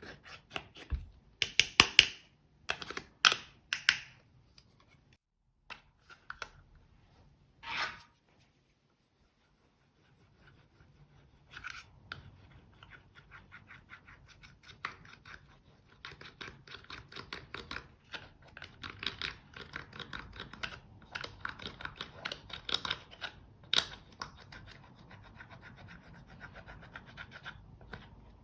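Slime being squeezed, pressed and worked by hand, making quick small crackles, pops and scratchy rubbing. There are a few loud bursts of crackling in the first four seconds and one more around eight seconds in. After a short pause, a long run of dense, softer crackling follows.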